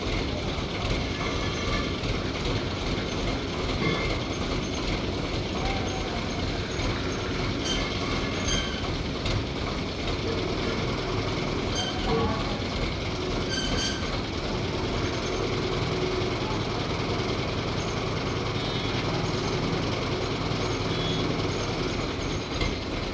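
Heavy truck-mounted crane's diesel engine running steadily, with scattered short squeaks and clanks over the rumble.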